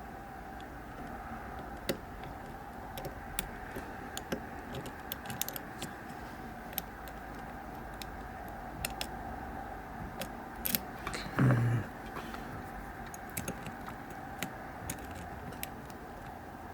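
Small scattered metallic clicks of a hook pick and tension tool working the pins inside an EVVA GPI lock cylinder, over a steady background hum. There is one louder, dull knock about two-thirds of the way through.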